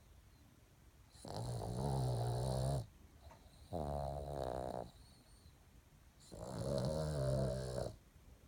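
Boston terrier snoring in its sleep: three loud snoring breaths a second or two apart, each lasting about one to one and a half seconds, with a low buzzing rasp.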